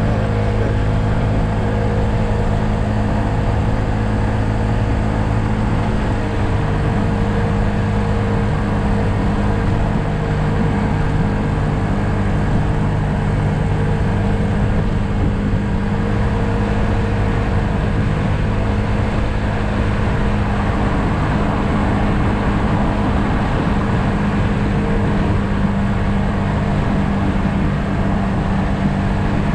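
2020 Yamaha SMax scooter's 155 cc single-cylinder engine running steadily at cruising speed, with wind and road noise over it; the engine note shifts slightly about six seconds in.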